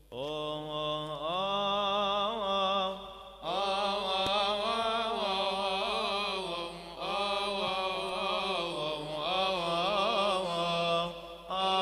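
Coptic Orthodox hymn chanted by unaccompanied voices: long, melismatic held vowels with wavering ornaments, broken by short pauses about three, seven and eleven seconds in.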